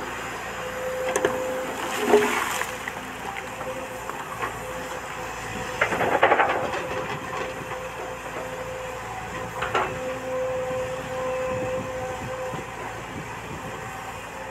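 Volvo crawler excavator running steadily with a constant whine, with three louder bursts of scraping and clatter, about 2, 6 and 10 seconds in, as its bucket works the soil and stones of the spoil pile.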